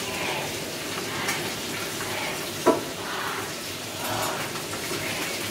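Hot cooking oil sizzling and crackling steadily, as in deep-frying fish, with one short sharp knock about halfway through.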